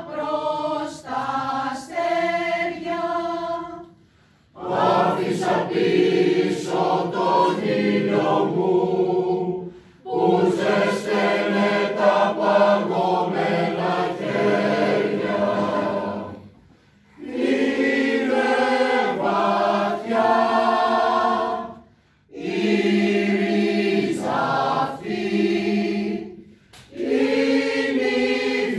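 Mixed choir of men's and women's voices singing a Greek song a cappella, in long phrases broken by short pauses for breath.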